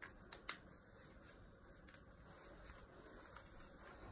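Near silence with faint rustling and a few soft clicks in the first half-second: tight swim jammers being gripped and hauled up the thighs by hand.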